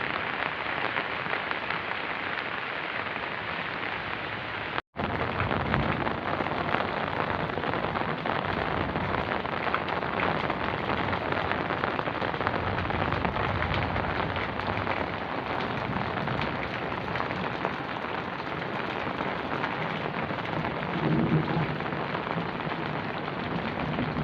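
Heavy rain pouring down, a dense steady hiss of falling water, with a low rumble in the last few seconds. The sound drops out for a moment about five seconds in.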